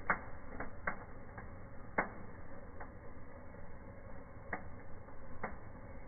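Indoor table fireworks burning: sparks crackling, with about eight irregular sharp pops over a steady low hiss, the loudest near the start and about two seconds in.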